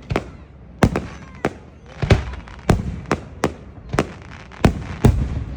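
Fireworks going off: about a dozen sharp bangs come in an irregular run, roughly two a second, with crackling and rumbling between them.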